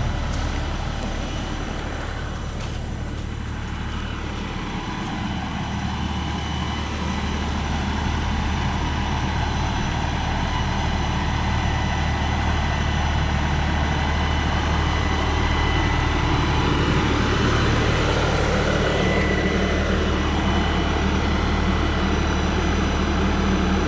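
A 42 hp LS compact tractor's diesel engine runs steadily, getting gradually louder through the second half.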